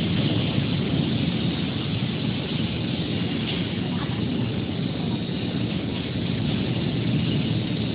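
Hydraulic power unit of a 1400 kg lifting welding positioner running steadily while its cylinder tilts the worktable backward.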